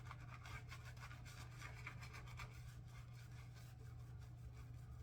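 Horsehair shaving brush worked quickly over skin or soap, a fast, soft scratchy brushing of lather, with a steady low hum underneath.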